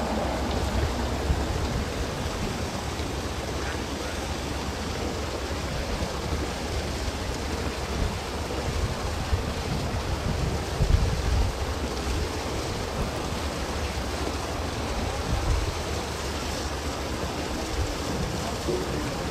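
Wind buffeting the microphone: a steady rushing noise with a gusty low rumble that swells and drops, over open-air harbour ambience.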